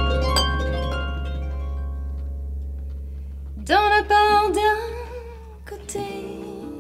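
Music: plucked harp notes ring out and fade over a held low bass note. Around the middle a brief wavering melodic line comes in, and the music thins out near the end.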